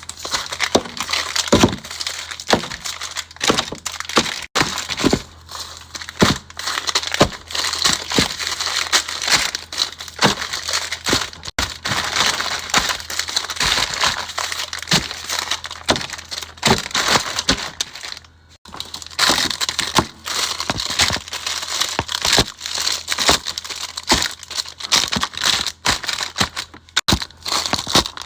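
Plastic packaging crinkling and rustling, with frequent sharp clicks and knocks as packaged items and containers are handled and set down during a fridge restock.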